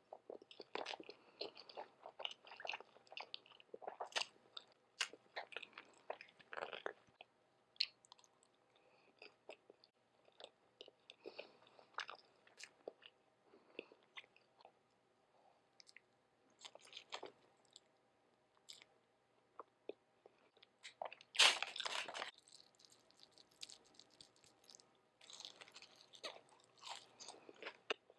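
Close-miked chewing and crunching of breakfast food (hotcakes, sausage, hash brown, bacon), in short irregular bites and chews with brief pauses. A louder, longer crunch comes about three-quarters of the way through.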